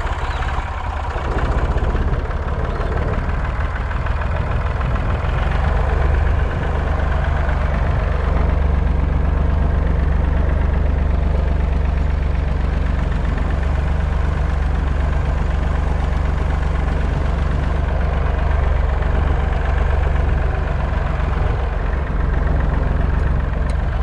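Tractor engine running steadily as the tractor drives across rough grassland.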